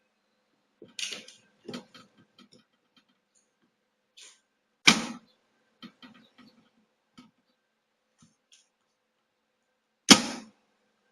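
Manual door gasket welding machine being worked by hand: a series of short mechanical clicks and knocks, with two loud sharp clanks, about five seconds apart, from its clamps or handles.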